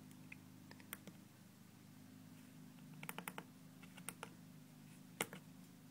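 Small push buttons clicking as the LCD controller board's OSD menu is worked: a few scattered presses, a quick run of several about three seconds in, and the loudest near the end. A steady low hum runs underneath.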